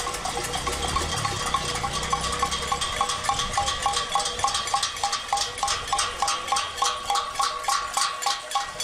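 Metal pots or pans struck in a steady beat of about three ringing strikes a second, the clanging of a cacerolada protest.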